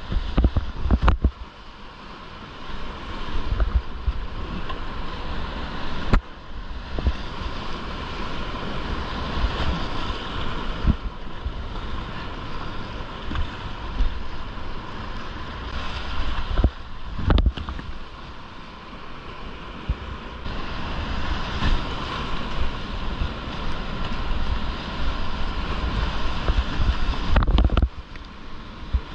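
Rushing whitewater of a river rapid heard from a kayak, with a deep rumble and wind buffeting the camera microphone. A handful of sharp knocks or splashes stand out, the strongest about six seconds in and around seventeen seconds.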